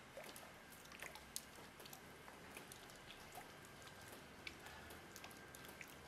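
Faint water drops falling at irregular intervals, each a short tick or small plink, the loudest about a second and a half in.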